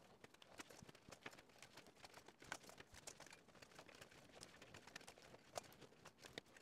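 Faint, irregular crackling and ticking as a four-stranded flat ribbon wire is peeled apart and its loose strands are pulled over the desk.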